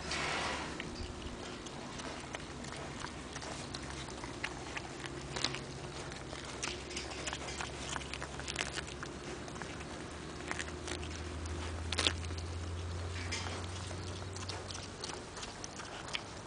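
Minipig grazing, tearing off and chewing grass: irregular crisp clicks and crunches, with a sharper snap about twelve seconds in, over a steady low hum.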